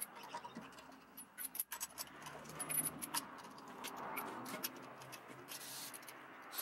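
Faint, scattered light clicks and clinks of small hard objects being handled.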